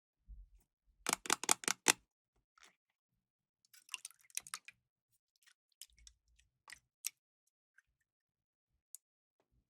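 Light clicks and taps of small hard objects being handled: a quick run of about six clicks a second in, then scattered single clicks and a few soft low knocks.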